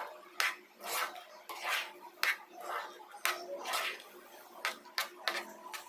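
Stainless-steel spatula scraping and clacking against a nonstick pan while stirring a thick cooked-rice mixture, in a series of short strokes about two a second.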